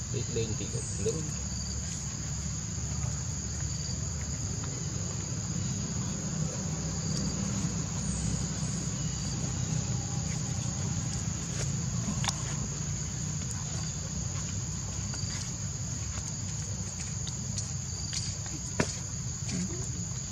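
Steady high-pitched drone of insects, over a low steady rumble, with a few faint clicks, the sharpest near the end.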